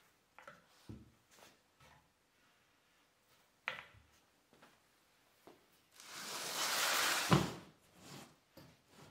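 Wooden battens being shifted across metal rods, giving a few light knocks. About six seconds in, a large wooden panel slides across the supports with a rushing scrape and lands with a heavy thump.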